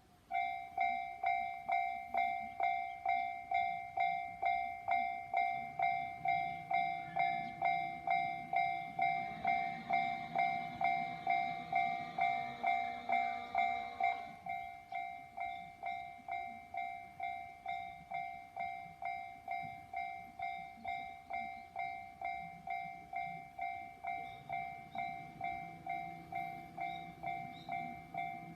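Japanese railway level-crossing warning bell starting up and ringing a two-tone electronic ding about twice a second. A train runs through the crossing in the middle, and at about the halfway point the bell drops suddenly to a softer level and rings on. A low train rumble builds again near the end.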